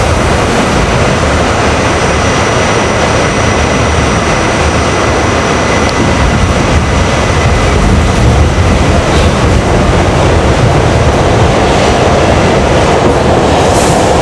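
Interior of an R68 subway car running through a tunnel: loud, steady rumble of the wheels on the track and the car in motion, with faint steady high-pitched whines running through it.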